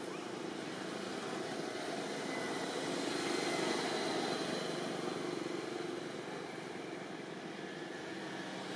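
Distant engine noise of a passing vehicle, a steady drone that swells to a peak about three and a half seconds in and then slowly fades.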